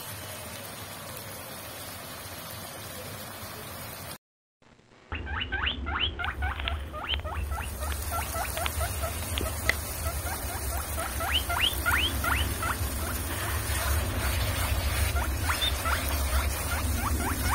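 Curry boiling hard in an aluminium kadai, a steady bubbling hiss. After a brief break a little over four seconds in, a low steady rumble comes in with a rapid run of short squeaky chirps that slide down in pitch.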